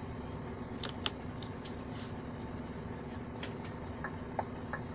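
Truck engine running steadily, heard from inside the cab, with a few light clicks scattered through it.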